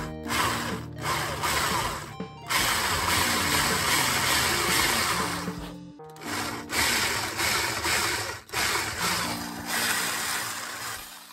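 Cordless drill boring into the bass body around a stripped bridge screw to free it. It runs in two long stretches with a short break about halfway.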